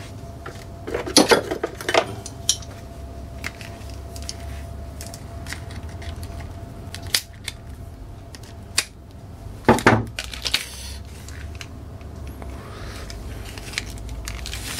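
Small metal tools clinking and clicking against each other while a new tool is handled and taken from its plastic blister pack. There is a cluster of sharp clinks about a second in and another around ten seconds in, with softer plastic rustling between them.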